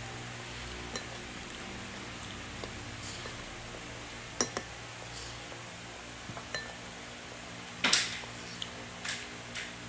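A toddler's white feeding spoon tapping and scraping in a small bowl: scattered single clicks, with the loudest, a short scrape, about eight seconds in, over a steady low room hum.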